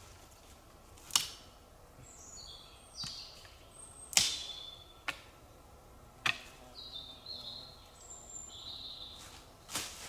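Several sharp knocks or snaps at irregular intervals, the loudest sounds present, while a small songbird sings twice: each phrase a run of high whistled notes stepping down in pitch.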